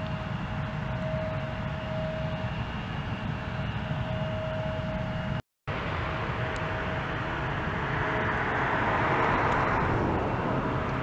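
Embraer E170 jet taxiing: its GE CF34-8E turbofans give a steady whine over a low rumble. The sound drops out for a moment about halfway through, and a broader rush of jet noise swells and eases again about eight to ten seconds in.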